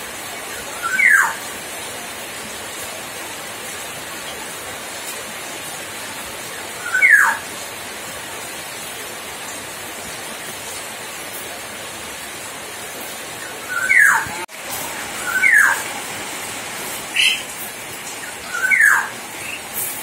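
Common hill myna giving loud, sharp whistles that each drop quickly in pitch and last under half a second: one about a second in, one around seven seconds, then three close together near the end, with a shorter, higher call among them. A steady hiss runs underneath.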